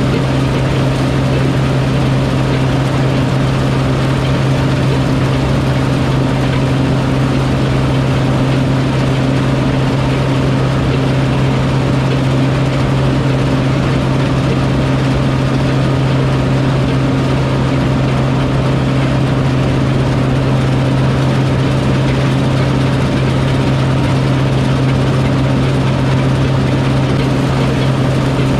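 Diesel engine of harvest machinery running steadily at constant speed, a continuous low drone with an even pitch throughout.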